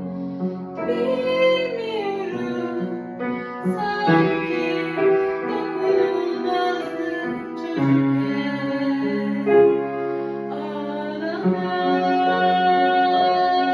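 A woman singing a slow song, her voice gliding between held notes, over sustained keyboard chords.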